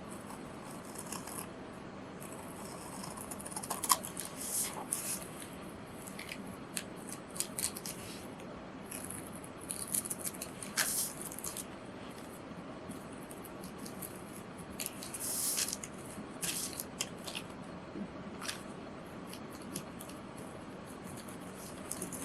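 Scissors cutting through a printed etching on paper: irregular snips and paper rustling, in short clusters with pauses between them.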